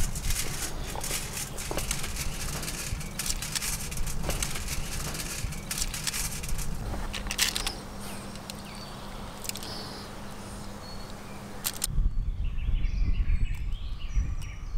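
Food being handled on a foil-lined baking tray: light crinkles and clicks of the foil as fish, herbs and lemon slices are laid in, with birds chirping faintly. About twelve seconds in the clicking stops and a low rumble takes over.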